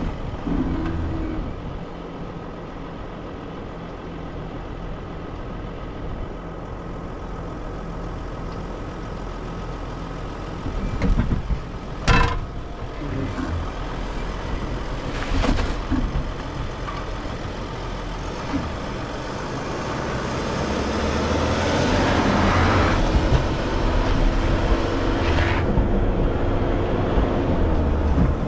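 Sprinter 4x4 van driving on a sandy dirt trail: steady engine and tyre noise, with a few sharp knocks from the rough ground, getting louder in the last several seconds.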